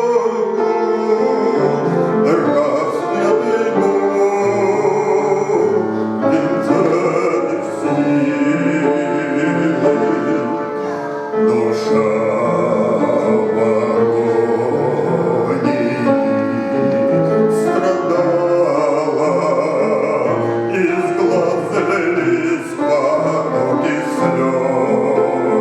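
Man singing a Christian hymn with instrumental accompaniment, the voice holding long notes over a steady musical backing.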